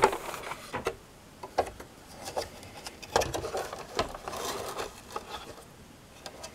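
Plastic toy tanks being handled and positioned on a rug: a sharp knock right at the start as one is set down, then scattered light clicks, taps and rubbing of plastic.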